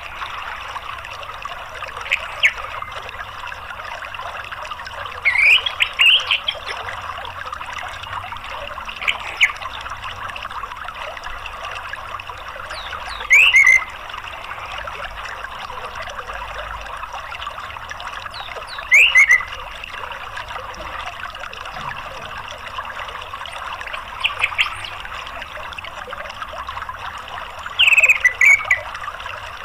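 Steady running water of a stream, with short calls of an orange-headed thrush breaking in about seven times, a few seconds apart, each a quick rising-and-falling phrase louder than the water. It is a lure recording meant to get a caged thrush that won't sing to answer.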